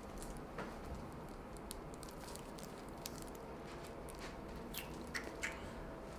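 Soft handling noise of a chiropractor's hands moving over a patient's neck on the treatment table: faint scattered small clicks and rustles, with a few sharper ticks near the end.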